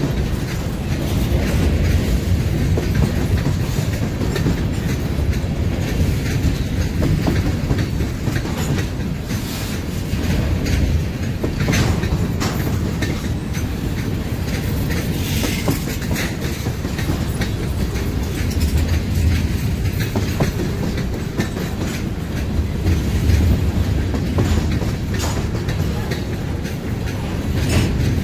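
Freight train's covered hopper cars rolling past close by: a steady low rumble with scattered wheel clacks as the wheels cross rail joints.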